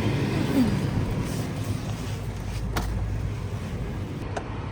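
Steady low rumble of a car driving, with a sharp click about halfway through and another near the end.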